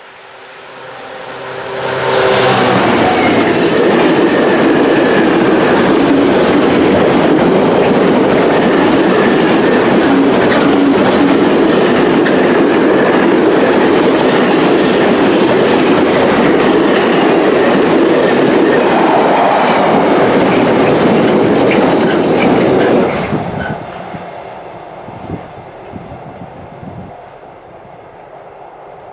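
Class 66 diesel locomotive, with its two-stroke V12 engine, approaching and passing, its engine note rising as it nears. A long rake of loaded container flat wagons follows, its wheels clicking steadily over the rails for about twenty seconds. The sound drops sharply as the last wagon goes by and then fades away.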